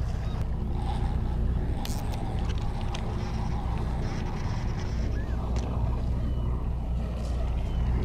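A boat engine running steadily, a low continuous hum, with a couple of faint clicks over it.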